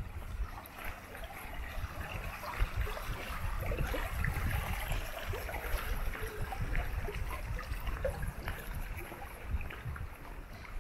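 Water of a shallow stream trickling and burbling steadily, with a low rumble underneath.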